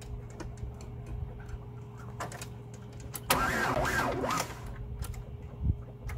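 Hand priming pump on a Daewoo forklift's diesel fuel system being worked to bleed trapped air, giving scattered faint clicks over a steady low hum. About three seconds in, a louder wavering sound lasts about a second.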